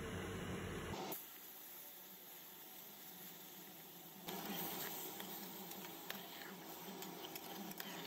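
Faint steady hiss with a few light clicks in the second half; the sound changes abruptly about a second in and again about four seconds in.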